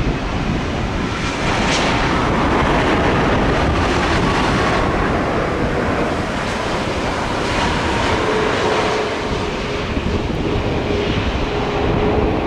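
Jet airliner's engines running loud and steady as it passes, with a droning tone coming in about two thirds of the way through; wind buffets the microphone.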